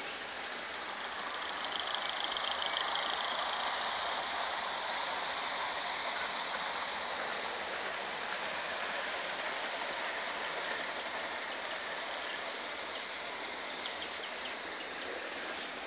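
Gauge 1 live-steam model locomotive and coaches running on the garden track: a steady hiss of steam exhaust and wheels rolling on the rails, swelling to its loudest a couple of seconds in, with a few light ticks.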